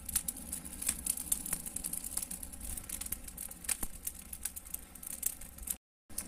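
Wood fire of dry twigs and kindling crackling, with irregular sharp snaps and pops. The sound drops out briefly near the end.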